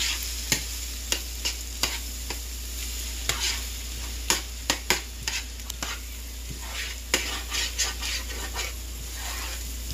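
Diced peppers, onions and scrambled eggs sizzling with a steady hiss in a nonstick skillet as they are stirred, the utensil clicking and scraping against the pan at irregular moments.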